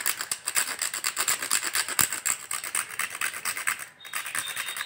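Rapid, rhythmic rasping strokes, about six a second, of a spice being grated by hand for tea; they stop about four seconds in.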